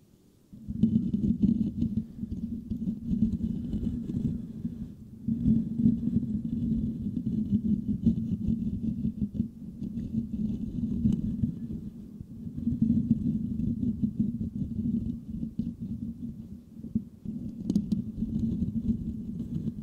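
Fingertips scratching and rubbing the metal mesh grille of a Blue Yeti microphone, giving a dense, low scratching that starts about a second in and eases briefly a few times.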